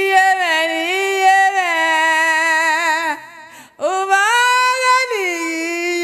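A woman's voice singing unaccompanied in long, held notes with a wavering pitch. It breaks off briefly a little past halfway, then rises into another long held note.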